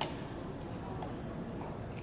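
Quiet ballpark background noise with one sharp click at the start and a fainter one near the end.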